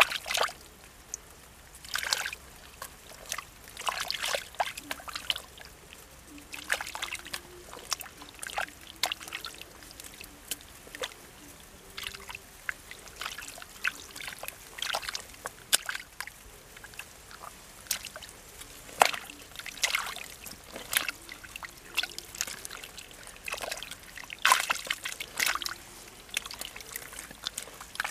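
Hands scooping and slapping through wet mud and shallow muddy water: irregular wet squelches and small splashes, one or two a second.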